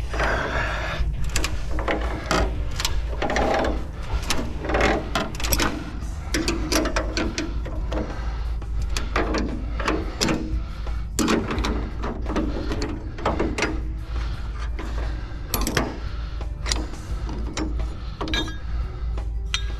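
Tongue-and-groove pliers clicking and scraping on a large bus bar nut as it is worked loose, with many irregular metallic clicks and clinks over a steady low hum.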